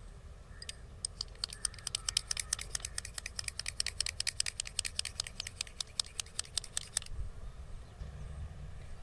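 A fast, even run of sharp clicks, about seven a second, starting about a second in and stopping abruptly about seven seconds in.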